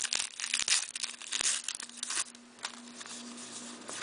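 Plastic hockey-card pack wrapper crinkling and tearing as the pack is opened and the cards are pulled out. It is busiest for the first two seconds, then settles into softer rustling of the cards in hand. A faint steady hum runs underneath.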